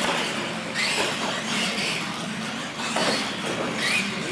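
Electric radio-controlled monster trucks running on a concrete floor, their motors and gears whining and rising and falling in pitch as the drivers work the throttle.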